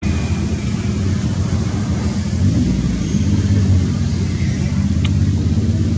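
A steady low engine rumble, a motor running.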